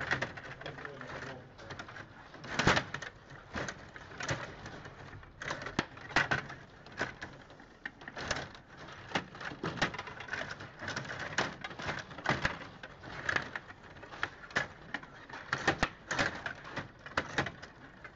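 Stiga Play Off table hockey game in play: quick, irregular plastic clicks and clatter as the control rods are pushed, pulled and twisted and the plastic players strike the puck. Several louder knocks stand out, about two and a half seconds in and again near sixteen seconds.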